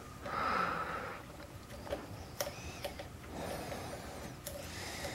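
Faint scraping of a steel hook pick working the pins inside a KABA Peaks lock cylinder under tension, with a few small sharp clicks as the pins are lifted.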